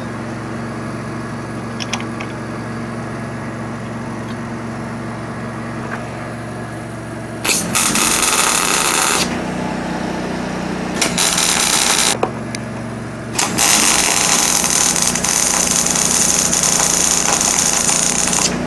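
MIG (wire-feed) welder arcing in three bursts: two short tack welds of about a second or so each, about seven and eleven seconds in, then a longer weld of about five seconds from about thirteen seconds in, tacking the steel arms of a fullering jig together. A steady low hum runs beneath before the first weld.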